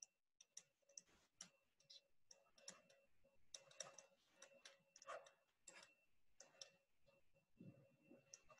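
Near silence with faint, irregular clicks of a stylus tapping on a touchscreen as handwriting is written.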